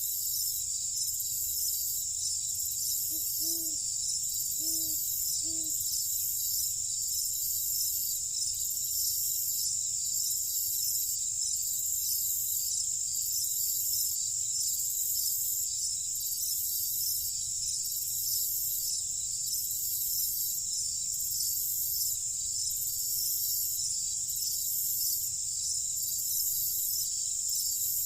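A steady night chorus of crickets and other insects, high-pitched, its upper part pulsing slowly and evenly. A few seconds in, an animal gives three short low calls.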